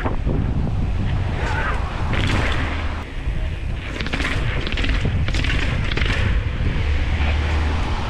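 Wind buffeting the microphone of a camera on a moving mountain bike, with scattered knocks and rattles from the bike rolling over rough ground.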